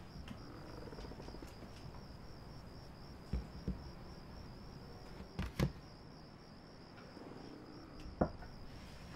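A cricket trilling steadily in a fast, even pulse, with a few scattered knocks and thumps; the loudest come about five and a half seconds in and near the end.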